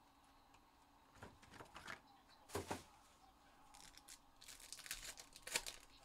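Trading-card pack wrappers crinkling and tearing in scattered short bursts as a pack is opened, the loudest burst near the end.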